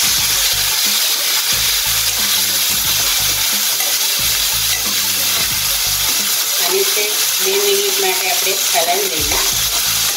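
Diced potatoes and frozen green peas sizzling as they fry in a metal kadai, with a steel slotted spoon stirring and scraping them around the pan.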